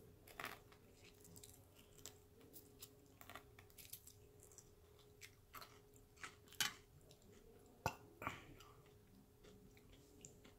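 Faint close-up chewing of fried food, with scattered wet mouth clicks and smacks and a few louder crunchy bites.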